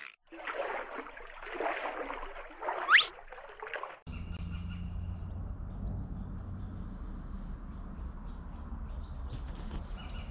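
A loud rushing sound with a quick rising sweep about three seconds in, then an abrupt cut to steady river ambience: running water over a low, constant rumble.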